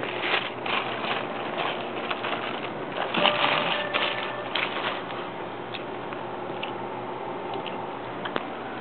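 Chewing and crunching of hard-shell tacos, with irregular crackles, busier in the first few seconds and then sparser clicks.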